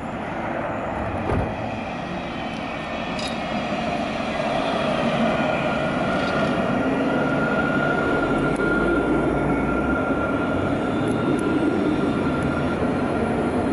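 Alstom Citadis tram running in and drawing up at a stop, its wheels rumbling on the rails and growing louder from about four seconds in. A steady high whine joins around six seconds in.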